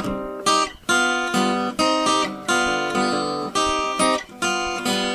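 Acoustic guitar strumming chords, about two strums a second, each chord ringing out before the next.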